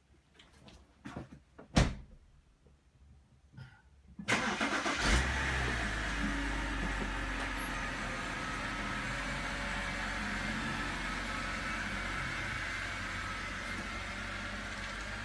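A car door shuts about two seconds in. Then a BMW 3.0-litre straight-six cranks and catches, and settles into a steady idle; this is the first start after the fuel injectors were cleaned and refitted, run to check a slight splutter. The sound eases a little near the end as the car pulls away.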